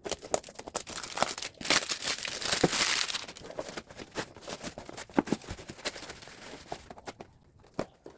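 Wrapping being crinkled and torn open by hand: a dense stretch of rustling and crackling about 1.5 to 3 seconds in, with scattered sharp clicks and rustles before and after.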